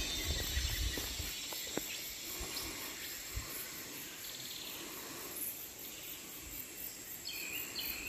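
Tropical forest ambience: a steady high insect drone with fast, evenly repeating pulses, and a few low thumps in the first half. Near the end comes a short run of three or four high bird chirps.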